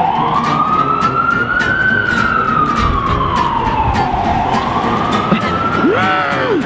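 Emergency vehicle siren on a wail, sliding slowly up in pitch, down, then up again over several seconds above a low street rumble. Near the end a short separate tone rises and falls.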